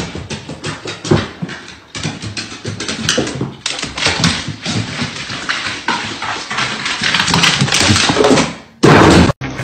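A dog clattering down hardwood stairs: a rapid, uneven run of claw clicks and body knocks on the wooden steps. There is a short loud burst near the end.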